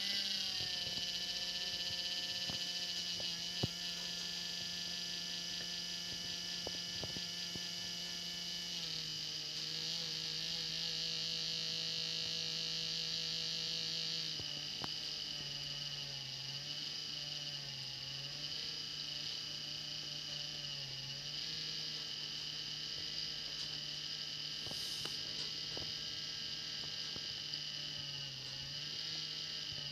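Vehicle differential whining, a steady pitched drone with many overtones: the noise the owner calls squeaking from the diff. Its pitch steps down a little about nine seconds in and again around fourteen seconds, then wavers up and down.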